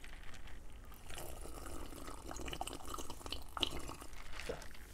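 A person drinking Coke Zero from a paper cup: sips and swallows of liquid, with a few small clicks.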